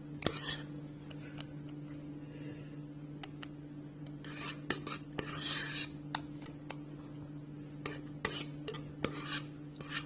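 A kitchen utensil scraping and clinking against a mixing bowl and baking pan as cheesecake batter is put over cinnamon rolls. The short scrapes and light taps come every second or two over a steady low hum.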